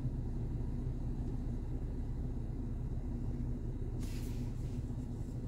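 Steady low hum of the Mercedes ML idling with its climate-control blower running, with a brief soft hiss about four seconds in.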